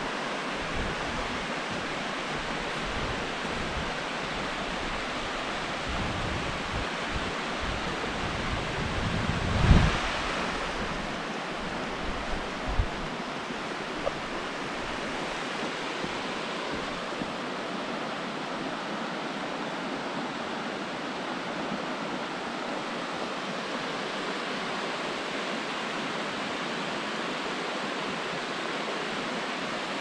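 Steady rush of water from a small waterfall cascading down a rock face, with wind buffeting the microphone in uneven gusts, strongest about ten seconds in. A couple of light knocks follow shortly after.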